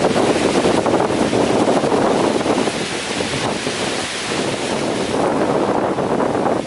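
Strong wind gusting with heavy rain lashing small trees: a loud, dense rushing noise that swells and eases slightly.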